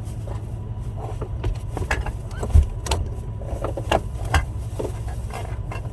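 Vehicle running with a steady low rumble, with scattered clicks and knocks; the loudest knock comes about two and a half seconds in.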